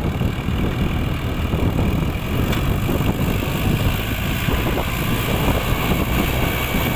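Diesel engines of a Fiat 480 tractor and an excavator running steadily, with a low rumble, as the excavator pushes the loaded tractor and trailer uphill.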